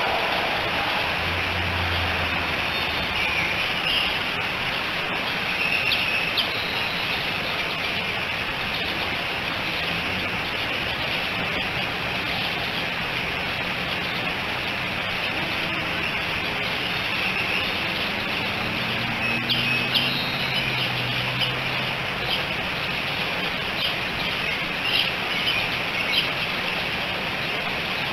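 Outdoor ambience: a steady hiss with small birds chirping now and then, mostly a few seconds in and again in the latter half. A vehicle passes with a low hum about two-thirds of the way through.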